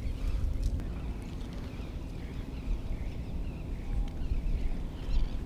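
Steady low outdoor rumble of wind and water noise on the microphone, rising and falling, with a few faint, short, wavering high chirps about halfway through and again near the end.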